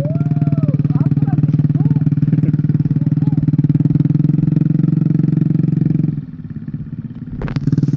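Motorcycle engine running steadily under throttle, close by, then dropping away about six seconds in, with a single knock shortly before it picks up again near the end.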